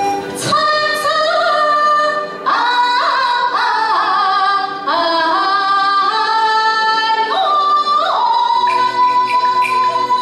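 Yue (Shaoxing) opera singing: a woman's voice sings an ornamented line of the aria over instrumental accompaniment. From about eight seconds in, the voice holds one long note.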